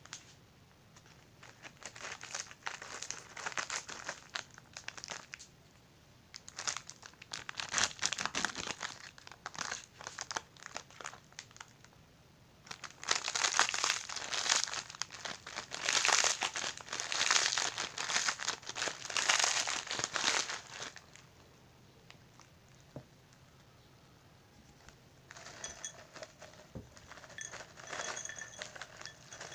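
Crackers being crushed inside their plastic wrapper by hand, crinkling and crunching in three long spells, the last the loudest. Near the end, a softer rattle as the crumbs are tipped into a drinking glass.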